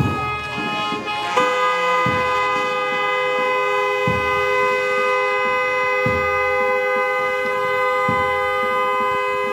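Car horns held in one long, unbroken blast of two steady tones, starting about a second and a half in, with a low drum beat about every two seconds underneath.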